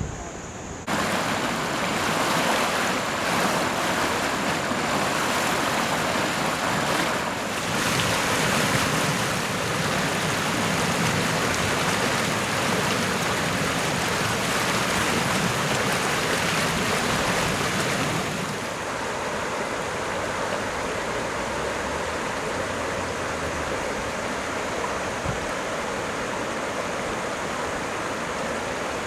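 Fast-running water of a flash-flooded creek, a steady loud rush; it drops a little in level about two-thirds of the way through.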